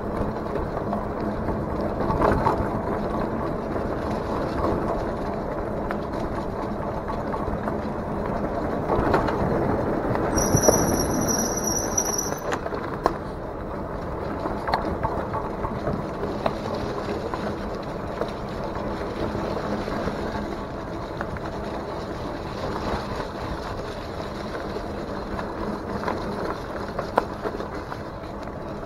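Mongoose Dolomite fat-tyre e-bike rolling along a dirt trail: a steady rumble of tyres over ground and leaves, with many small rattles and clicks from the bike over bumps. A brief high squeal, about two seconds long, comes about ten seconds in.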